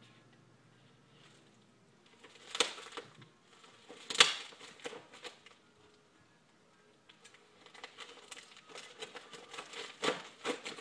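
Handling of white-wrapped rolls of plastic coin capsules: two sharp knocks as they are set down, about two and a half and four seconds in, the second the loudest. From about seven seconds, a quick run of crinkling and snipping as scissors cut open the packing wrap.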